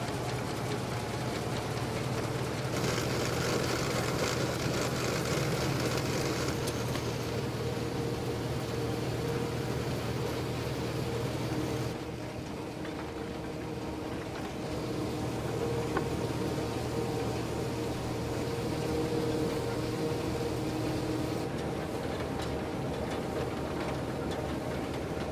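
Vintage Claas Super trailed combine harvester working in wheat behind its tractor: engine and threshing machinery running steadily. The sound changes abruptly about halfway through.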